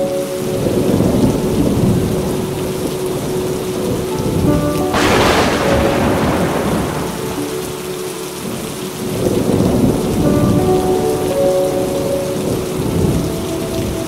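Thunderstorm: rain falling steadily while thunder rumbles in several long rolls. About five seconds in comes a sharp thunderclap that dies away over a couple of seconds.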